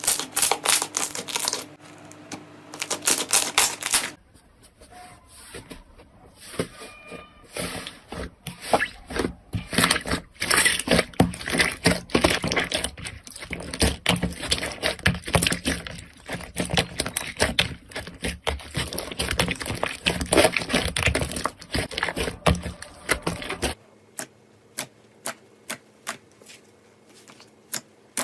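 Slime being squeezed and poked, giving rapid crackling and popping clicks. The texture changes abruptly about four seconds in and again a few seconds before the end, where the clicks thin out to single pops.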